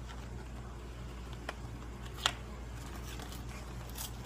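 Quiet indoor room tone with a steady low hum, broken by a few light clicks and one sharper click about two seconds in.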